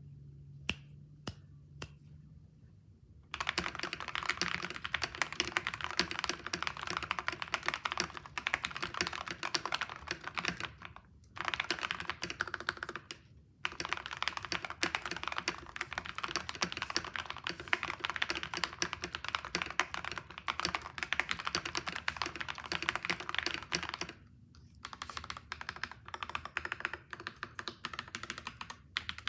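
Mechanical keyboard with cream keycaps being typed on: creamy, poppy keystrokes. A few single key presses, then fast continuous typing from about three seconds in, broken by two short pauses, turning lighter and sparser near the end.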